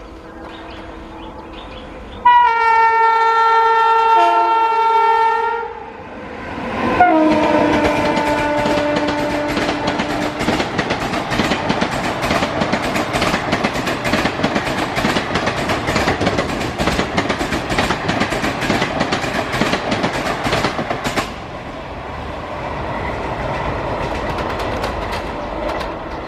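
Indian Railways electric locomotive horn giving a long steady blast, then a second blast that drops in pitch as the train passes at high speed. Then the coach wheels clatter rapidly over the rail joints for about ten seconds, settling to a quieter rumble near the end.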